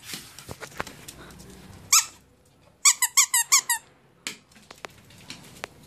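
Squeaky dog toy being bitten: one squeak about two seconds in, then a quick run of about seven short, high squeaks, and one more a moment later.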